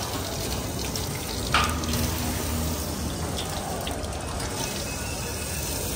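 Water running from a tap into a basin while hands and feet are washed under it. There is one brief, sharper sound about one and a half seconds in.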